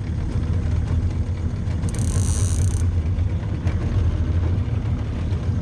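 55 hp outboard motor idling with a steady low rumble. About two seconds in comes a brief high buzz lasting under a second.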